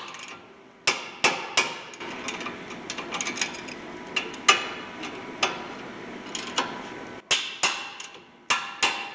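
Hammer tapping on steel at the brake caliper bracket bolts, with a metallic ring after each strike. Three sharp taps come about a second in, lighter knocks follow, and a quicker run of sharp taps starts near the end.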